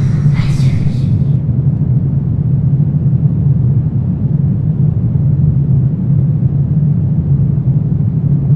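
Steady low rumbling drone of a horror ambience soundscape, with higher hissing, scraping sounds dying away in the first second and a half.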